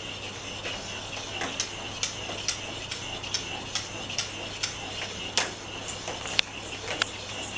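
Battery-operated rolling ball toy, its small motor turning a weight inside the ball, ticking as it rolls across a tile floor: short sharp clicks, about two or three a second.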